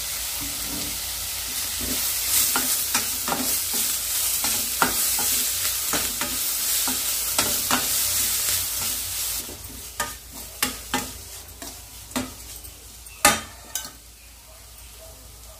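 Chopped onions and green chillies frying in oil in a stainless-steel kadai, sizzling, while a steel spatula stirs and scrapes against the pan with repeated clinks. The onions are already softened. About two thirds of the way through the sizzle dies down, leaving a few sharper spatula knocks, the loudest near the end.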